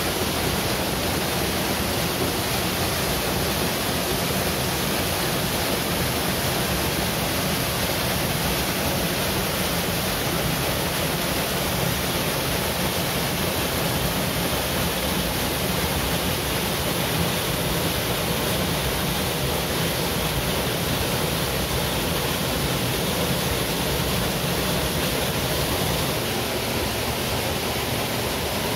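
Waterfall: a steady rush of falling water, with no breaks or separate sounds.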